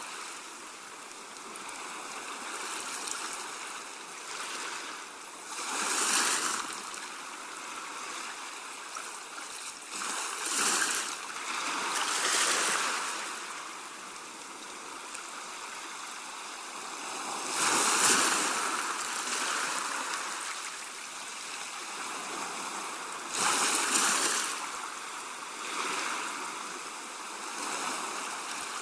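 Sea waves washing in and out on a shore: a steady hiss of moving water that rises into a rushing surge every few seconds and falls back, with the strongest surges about two-thirds of the way through.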